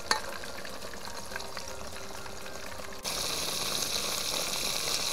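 Breadcrumb-coated barracuda deep-frying in a pot of hot oil: a steady sizzle that turns suddenly louder about three seconds in. A short tap comes right at the start.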